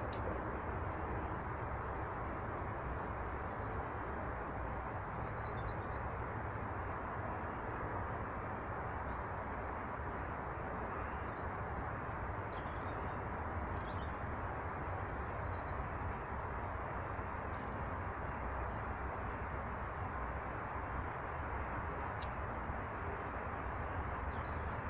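Small birds giving short, high chirps every two or three seconds over a steady rushing background noise.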